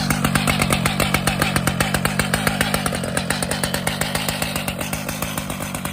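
Stihl MS881 two-stroke chainsaw engine running steadily with a fast, even pulse, just after being started.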